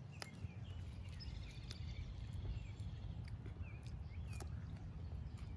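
Steady low wind rumble on the microphone, with scattered crunchy clicks of raw vegetables being chewed and small birds chirping in the background.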